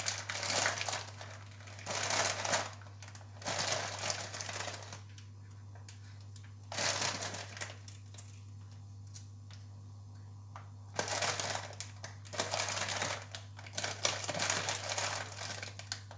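Plastic bag crinkling in repeated short bursts as a hand reaches in for croutons, with quieter pauses in between.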